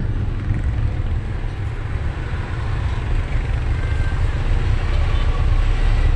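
Steady low rumble of a passenger bus's engine and road noise, heard from inside the moving cabin.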